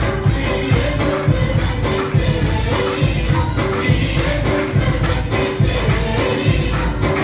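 A group of women singing a Telugu Christmas song together through microphones, over music with a steady beat.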